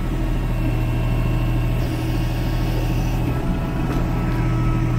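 Kubota L3560 tractor's diesel engine running steadily, heard from inside the cab, with an even low hum.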